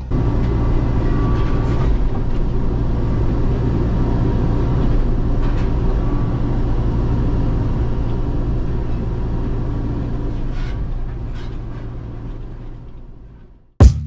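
Heavy vehicle engine running steadily with a low rumble, fading out shortly before the end.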